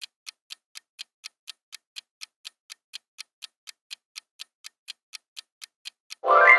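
Countdown clock-tick sound effect, an even ticking about four times a second. Near the end, a loud chime sound effect with a brief rising swoop rings out over the ticking, the answer-reveal cue that ends the countdown.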